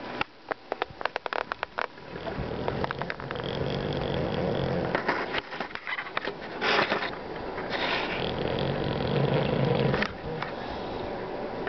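Bulldog snoring loudly in its sleep. A quick run of clicks and smacks in the first two seconds gives way to long snores with short pauses between them, and one brief, louder burst a little past the middle.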